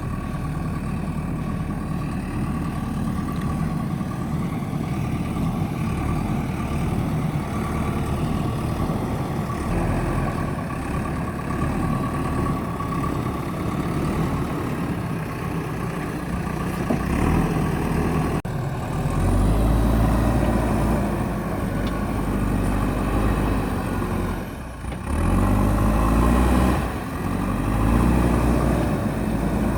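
JCB backhoe loader's diesel engine running continuously. The engine note grows louder and deeper in the second half, with one brief drop in level.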